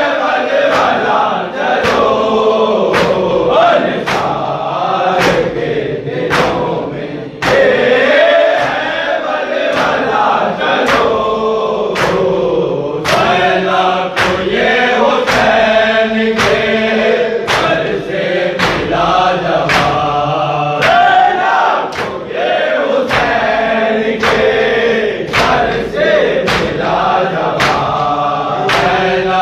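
Many men's voices chanting a noha (Shia mourning lament) together, kept in time by the crowd's open-handed chest-beating (matam), a sharp slap about once a second.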